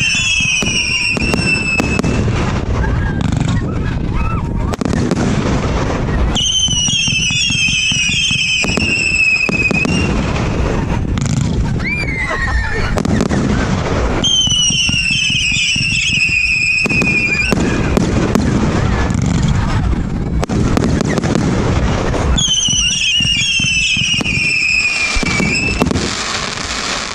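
A 64-shot 1.3G 'Power Force' firework cake firing: a continuous run of bangs and crackle, with a falling, warbling whistle heard four times, each lasting two to three seconds.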